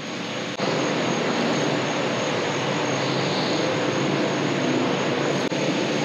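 Steady mechanical drone with a rushing, even noise and a faint low hum, starting abruptly about half a second in and holding level.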